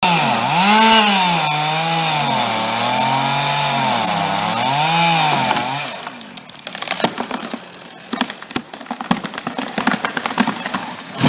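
Chainsaw cutting through an ash trunk, its engine speed rising and falling under the load, until it drops away about six seconds in. After that come irregular sharp cracks and snaps, like wood splitting as the cut tree gives way.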